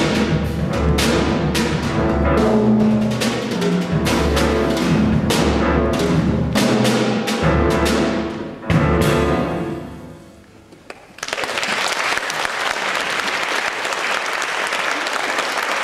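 Jazz trio of grand piano, upright double bass and drum kit playing the closing bars of a piece, ending on a final accented hit about nine seconds in that rings away. Then the audience applauds steadily.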